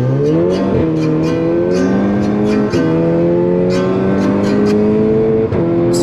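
Tuned turbocharged car accelerating hard through the gears, its engine pitch climbing steadily and dropping at each upshift: about a second in, near the middle and near the end.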